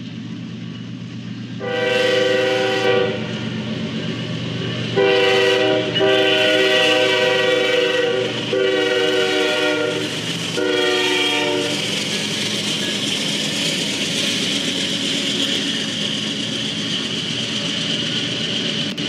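Freight locomotive's multi-chime air horn sounding four blasts, the second the longest and the last the shortest, a grade-crossing warning. Afterwards, the steady noise of a double-stack intermodal train's wheels rolling past on the rails.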